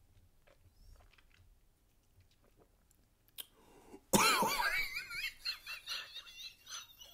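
Faint mouth clicks as a man holds and swallows a sip of neat Scotch whisky, then about four seconds in a sudden loud, wordless exclamation with a wavering pitch, breaking into short choppy vocal sounds: his reaction to the first sip of the strong spirit.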